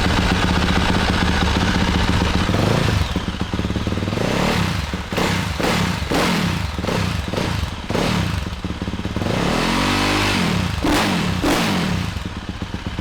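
2023 Yamaha YZ450F's single-cylinder four-stroke engine, breathing through a full exhaust system with a carbon-fibre tip, running just after start-up. It idles steadily for about three seconds, then takes a string of quick throttle blips, with a longer rev that rises and falls about ten seconds in.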